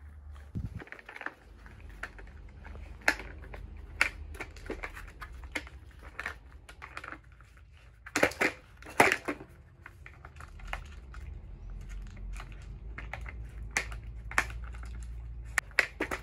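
A puppy pawing and nosing a plastic treat-dispensing puzzle toy: irregular plastic clicks, knocks and rattles, with the loudest clatters about eight and nine seconds in.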